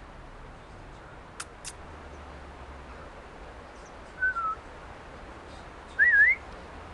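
Two faint clicks, then two whistled notes: a short, slightly falling one about four seconds in and a louder, wavering, rising one near the end.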